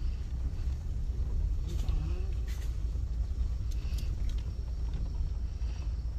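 Car cabin during driving: a steady low engine and road rumble from a car moving along a narrow country road, heard from inside. Faint voices are in the background.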